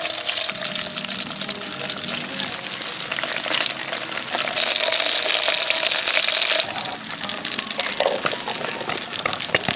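Breadfruit slices deep-frying in hot oil, sizzling and crackling steadily, with metal utensils turning them in the wok. The sizzle grows louder about halfway through, then eases off.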